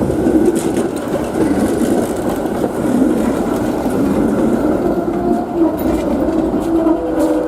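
PCC tram, a motor car with trailer, running on street rails: steel wheels rumbling with wavering tones and a few sharp clicks over rail joints.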